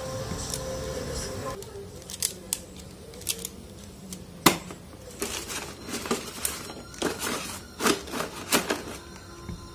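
Irregular clicks, clacks and rustling of hard plastic drone propeller guards and bagged parts being handled and packed into a styrofoam box.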